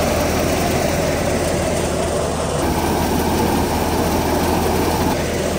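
Tractor-driven Kamdhenu thresher running steadily, the drum and fan making a dense rushing noise over the steady drone of the Eicher 485 tractor's diesel engine working under load.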